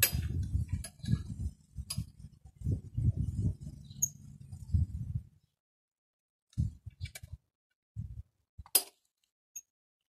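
Light clicks and clinks from work on a BMX's handlebars and stem, over an uneven low rumble that stops about five seconds in; after that come a few separate clicks, one sharp one near the end.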